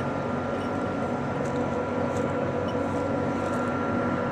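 Steady drone of running chiller plant machinery: an even hum with a thin, steady high whine above it.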